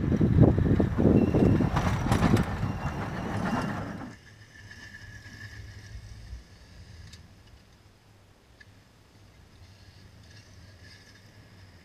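Pickup truck pushing snow with a Western MVP3 V-plow: the engine pulling under load with a loud, rough rush of snow off the blade for about four seconds. Then, much quieter, the truck's engine running low and steady, with a single thump about two seconds later.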